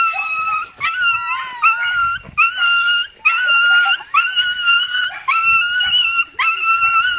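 A dog whining and crying in excitement as it jumps up to greet a person. It makes about eight high-pitched held cries in a row, each under a second long and sliding up at the start.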